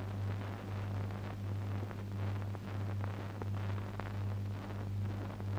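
Steady low hum with faint hiss, swelling and fading slowly, from the background noise of an old film soundtrack.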